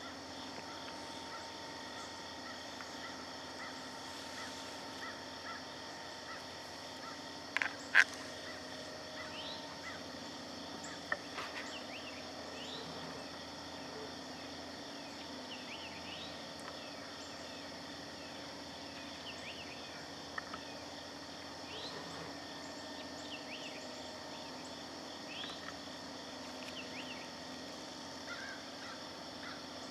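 Early-morning woods ambience: a steady high insect drone with scattered short bird chirps throughout. Two loud, sharp sounds come close together about eight seconds in, with a few fainter ones later.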